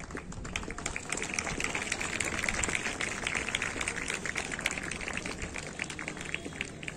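Crowd applauding, many hands clapping at once, swelling towards the middle and easing off near the end.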